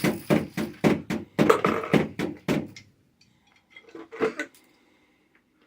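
Hard objects clattering in a quick run of knocks for about three seconds, then a shorter clatter about four seconds in.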